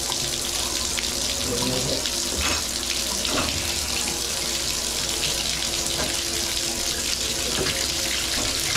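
Water running steadily from a bathtub spout into the tub, with the tub/shower valve turned on.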